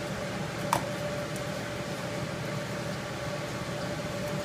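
A steady mechanical hum with a thin constant tone in it, and one short sharp click a little under a second in.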